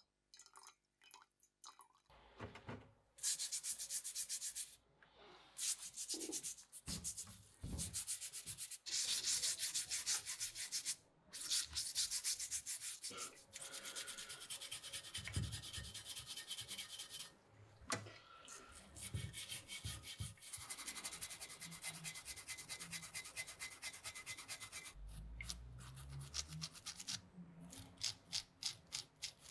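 A stiff brush scrubbing the rusty metal parts of an old manual knife sharpener in soapy water, in fast repeated strokes with short pauses between bouts.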